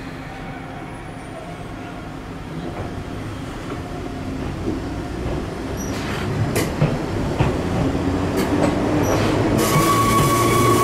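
Enoshima Electric Railway (Enoden) 2000-series electric train pulling out of the platform, growing steadily louder as it gathers speed. Its motor hum rises in pitch, and its wheels clack over the rail joints from about six seconds in.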